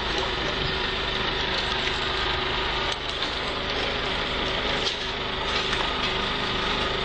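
Steady engine drone under a dense hiss, like a vehicle idling close by, with a few faint ticks.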